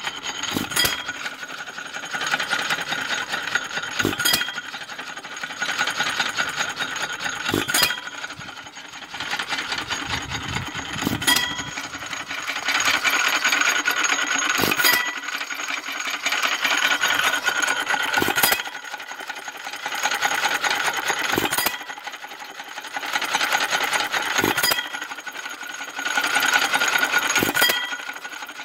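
Restored Japy single-cylinder stationary engine running on its hit-and-miss governor: a sharp bang from a firing stroke about every three and a half seconds, with steady mechanical clatter from the valve gear and flywheels as it coasts between firings.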